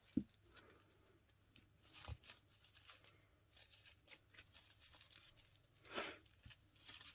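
Faint handling of a cardboard advent calendar: scattered light rustles and clicks with a couple of short tearing strokes, the louder one about six seconds in.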